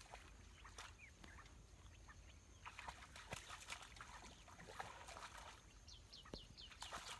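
Faint, high, short chirping calls with scattered soft clicks over a quiet outdoor background, ending in a quick run of about five falling chirps.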